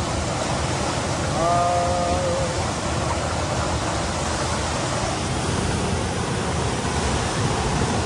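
Steady rushing of a mountain waterfall: an even, unbroken noise of falling water.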